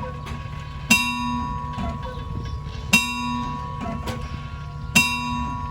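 The world's largest cuckoo clock's bell striking the hour: three ringing strokes about two seconds apart, over a steady low hum.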